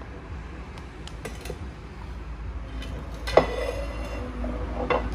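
Large heavy-bodied Japanese ceramic plate being handled: a few light clicks, then a sharp clink about three and a half seconds in with a short ring after it, and another small clink near the end.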